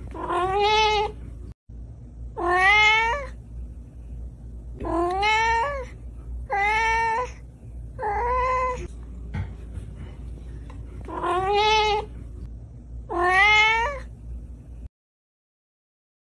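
Domestic cat meowing: seven drawn-out meows a second or two apart, each rising in pitch, over a steady low hum.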